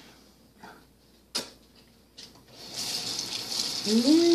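Kitchen sink faucet turned on, water running steadily into the sink from a little past halfway. Near the end a short pitched sound rises and falls over the running water.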